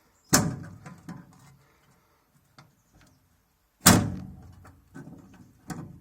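Metal covers over the knotters of a Bamford Super 58 baler being worked loose and pulled off: two loud clanks with a ringing tail, about a third of a second in and near four seconds in, with a few lighter knocks between and after.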